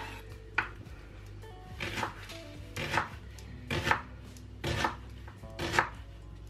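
Kitchen knife slicing an onion on a wooden chopping board: six sharp cuts, about one a second.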